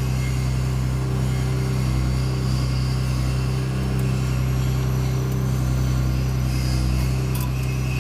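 A loud, steady, low mechanical hum, with a few light clicks of a hand tool near the end.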